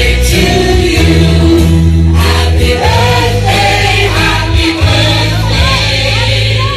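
Background music: a song with choir-like group singing over a steady, heavy bass line.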